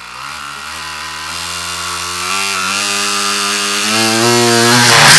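Plastic model engine kit spun up by a motor, whirring and rattling: a whine that climbs in pitch in steps and grows louder as the speed rises, cut by a sudden loud burst right at the end.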